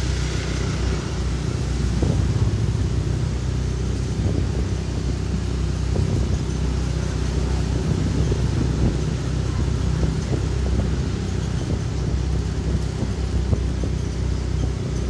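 Motorcycle engine running at a steady cruise while riding, a low even hum, with road and wind noise over it.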